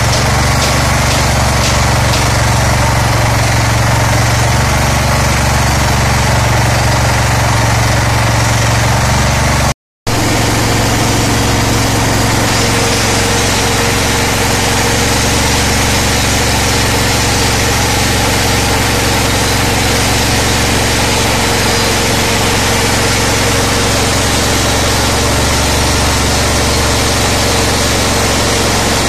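Small single-cylinder petrol engine converted to run on LPG, running steadily while driving a mini paddy huller. The sound cuts out for a moment about ten seconds in, then the engine and huller carry on.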